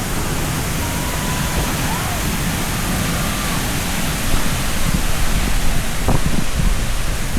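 Steady, loud rushing of a large man-made river waterfall. From about four seconds in, uneven gusts of wind buffet the microphone.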